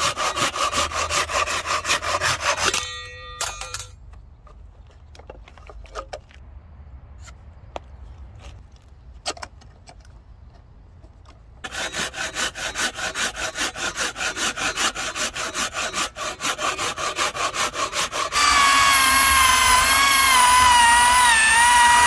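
Fine-toothed hand saw cutting a small block of plywood in quick back-and-forth strokes, about four a second: a few seconds of sawing, a quiet pause, then about six seconds more. Near the end a corded electric drill with a hole saw starts boring into the plywood, a loud steady whine that wavers in pitch as it cuts.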